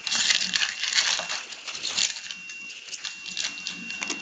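Foil wrapper of a 2014/15 SP Authentic hockey card pack being torn open and crinkled in the hands: dense irregular crackling, busiest in the first two seconds, then thinner rustling as the cards come out.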